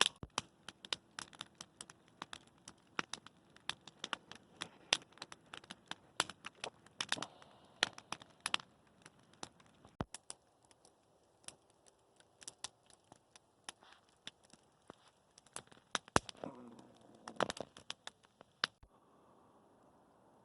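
Campfire wood crackling, with many irregular sharp snaps and pops that stop shortly before the end.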